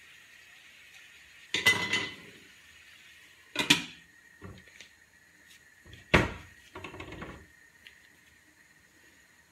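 Cookware clatter over a faint steady hiss: a wok of pork ribs being stirred with a wooden spatula and covered with its glass lid, with several sharp knocks and clanks. It ends in a short rattle.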